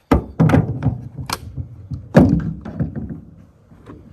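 Several hard knocks and thunks from handling gear on the freshly milled cedar log, the loudest about two seconds in, each with a short ring after it.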